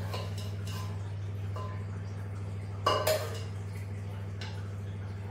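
Metal spoon clinking and scraping against a pressure cooker and a glass bowl as curry is dished out, with a few light clicks at first and a louder clink about three seconds in. A steady low hum runs underneath.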